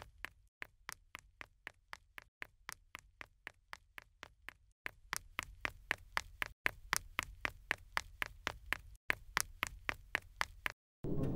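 A rapid, even series of sharp clicks or taps, about four a second, broken off by several short silent gaps. Right at the end the clicking stops and music starts abruptly.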